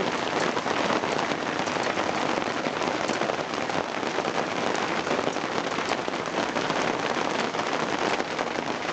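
Heavy rain mixed with hail pelting down, a dense steady patter with many sharp clicks of hailstones bouncing off surfaces.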